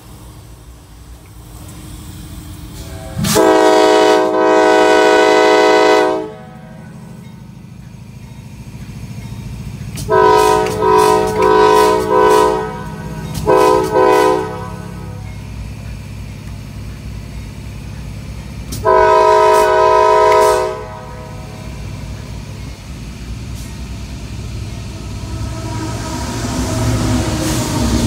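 Air horn of a moving CSX GE AC4400CW diesel locomotive, heard from inside the cab. One long chord blast comes about three seconds in, then a string of short blasts around ten to fourteen seconds, then another long blast near twenty seconds. The locomotive's low running rumble carries on between the blasts.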